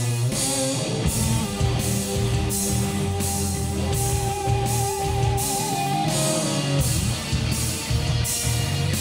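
Heavy rock song with distorted electric guitar and a steady drum and cymbal beat, played back through bookshelf speakers driven by a solid-state stereo amplifier on test. A single guitar note is held for several seconds in the middle.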